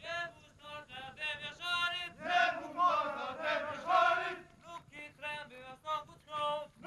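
A unit of soldiers chanting a marching song in rhythm as they run in formation: short calls from a single leading voice alternate with the whole group answering together.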